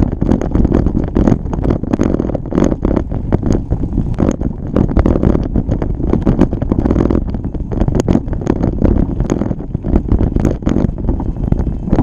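A bike riding over a rough trail: steady wind buffeting on the microphone, mixed with constant irregular rattling and clattering from the bike and the tyres on the ground.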